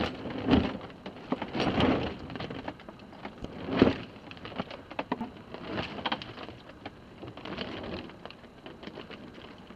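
Water sloshing and splashing against a sailboat's hull in irregular surges, mixed with small clicks and taps.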